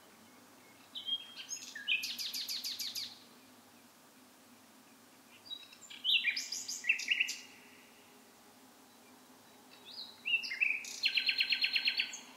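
A songbird singing three separate phrases, each about two seconds long, mixing short whistled notes with a fast trill of repeated notes, with gaps of a few seconds between them.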